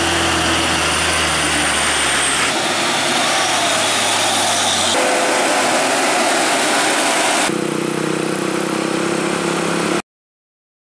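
Heavy diesel trucks, a Hino and a Mitsubishi Fuso, running under load as they climb a steep hill, heard as short clips that change abruptly about every two and a half seconds. The sound cuts off to silence about ten seconds in.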